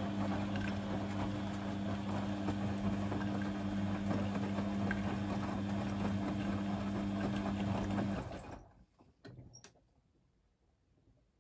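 Beko D2 8101E front-loading washing machine turning its drum during the cool-down stage after a 60° main wash: a steady motor hum with laundry and water sloshing. The drum stops about eight seconds in, followed by a few soft clicks.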